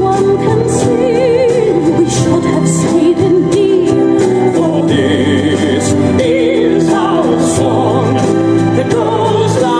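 A song with a singing voice held in wide vibrato over instrumental backing, performed for a pair of dog puppets.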